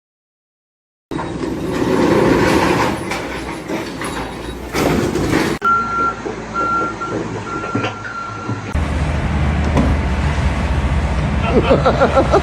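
A work vehicle's reversing alarm beeping about once a second over engine noise, between cuts of loud machinery noise; a heavy low engine rumble takes over for the last few seconds.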